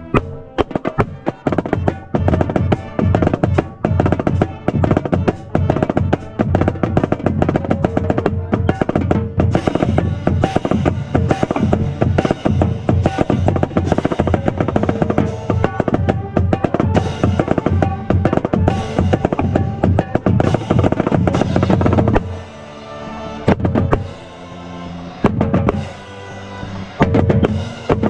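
Marching snare drum played right at the microphone in a drumline, fast strokes and rolls with cymbals crashing alongside. About 22 seconds in the playing thins out to sparser hits for a few seconds, then comes back full.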